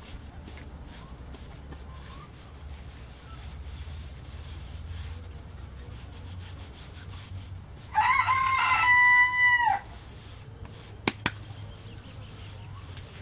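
A rooster crows once, a single call of about two seconds a little past the middle, rising at the start, held level, then dropping off. Two sharp clicks follow shortly after it.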